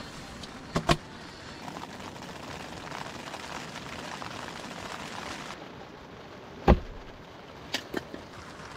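Steady rain falling on the tent, heard from inside, with a few knocks from things handled on the wooden camp table: two near the start, a louder thump past halfway and two light taps near the end.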